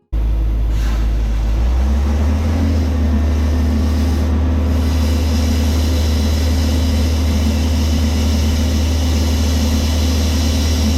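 Big portable air compressor running hard, its engine a low steady drone under a loud rush of compressed air, blowing corn out of a plugged planter tube. The engine note rises slightly about two seconds in as it takes up the load, and the sound runs steadily until it is shut off.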